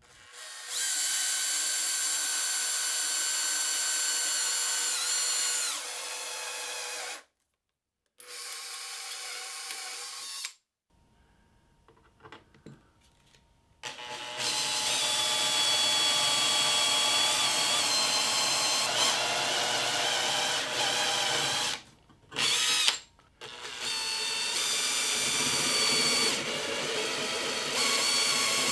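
Handheld power drill boring through a stainless-steel plate, a twist bit and near the end a step bit cutting the metal, with a steady high whine. It runs in several bursts, stopping and starting, with a few seconds' near silence about halfway.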